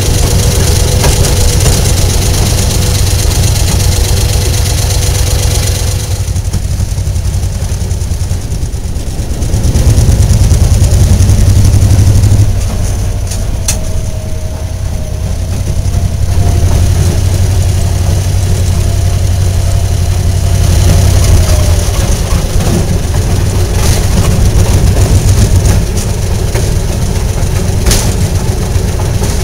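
Railroad motorcar (track speeder) engine running as the car rolls slowly along the rails, its low pulsing note growing louder at times as the throttle opens. There are a couple of sharp clicks along the way.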